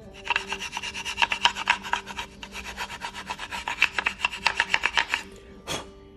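Brake pad friction material scraping in fast back-and-forth rubbing strokes, several a second. The rubbing stops about five seconds in, followed by one short sharp knock.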